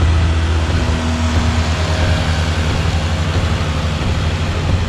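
Outboard motor running steadily with the boat under way, with the rush of water along the hull.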